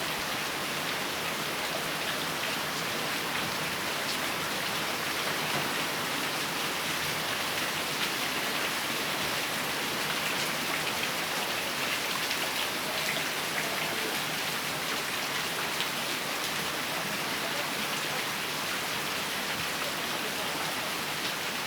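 Steady rain falling, with many fine drop ticks spattering on surfaces.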